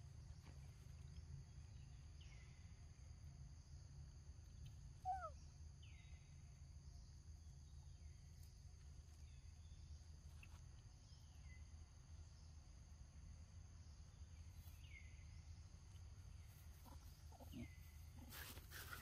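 Quiet outdoor ambience of a macaque troop feeding: a steady high insect drone, faint chirps every few seconds, and one short rising-and-falling squeak about five seconds in. Near the end come rustling and scuffling as the young monkeys scramble over the rock.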